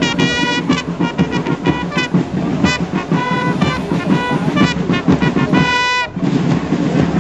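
Loud music: a high-pitched wind instrument plays a run of short notes over a dense low accompaniment. The melody stops about six seconds in.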